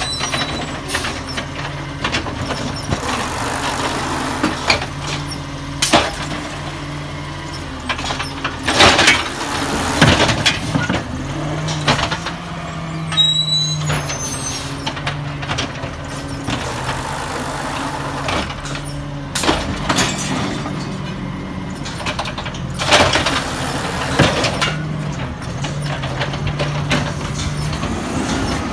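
Peterbilt 320 automated side-loader garbage truck running on compressed natural gas, its engine humming steadily at the curb. Sharp bangs and clanks come every few seconds, together with several rushing hisses.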